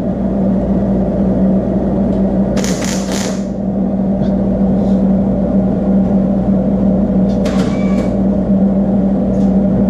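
MIG welding on perforated steel angle iron: a steady buzzing hum, broken by short hissing bursts about three seconds in and again near eight seconds.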